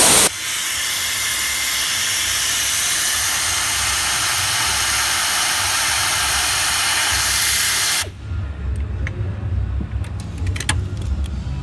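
Old pneumatic air ratchet running, a steady hiss of exhausting air as it spins out the bolts of the upper strut mount. It is an older tool and slow, and it stops suddenly about eight seconds in, followed by a few light metallic clicks.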